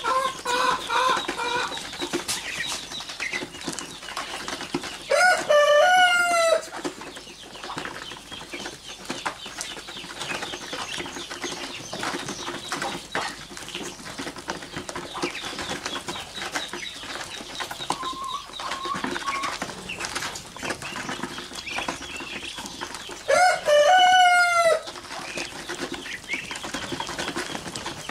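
Young Muscovy ducklings pecking and scratching at the sandy floor with a constant patter of small clicks and some short peeps, while a rooster crows loudly twice, about five seconds in and again near the end.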